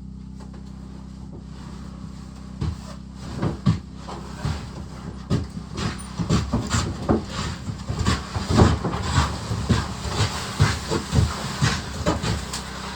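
Hardwood firewood being unloaded and stacked, logs knocking and clattering against each other in many short, irregular knocks that come thick and fast from about halfway in. A steady low hum runs underneath.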